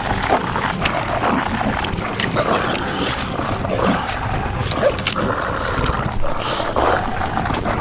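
Werewolf growling and snarling during a mauling attack, over many short cracking and tearing noises.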